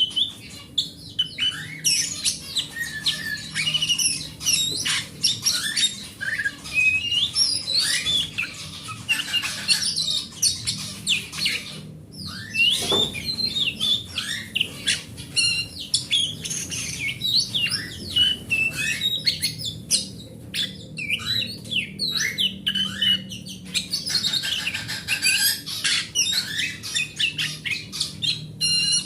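Oriental magpie-robin (kacer) singing a long, varied song of clear whistles, chirps and rapid trills, with a short break about twelve seconds in.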